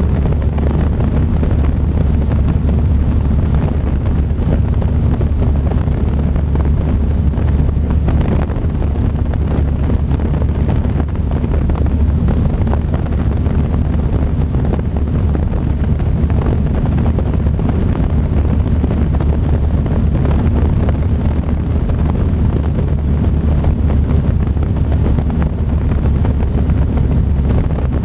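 Ercoupe's piston engine and propeller droning steadily in cruise flight, heard inside the cockpit, with wind rushing over the microphone.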